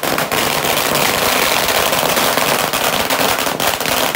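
A string of firecrackers bursting on the ground, the bangs following so fast they merge into one continuous crackling rattle, thinning to separate cracks near the end.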